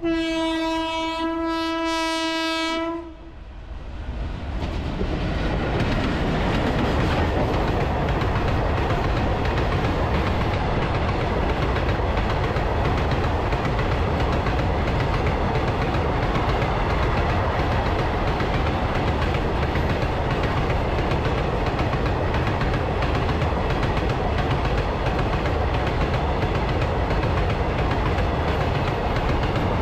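A WAG-7 electric locomotive's horn sounds one long, steady blast of about three seconds. Then a loaded freight train's wagons rumble and clatter past close by, steady and continuous.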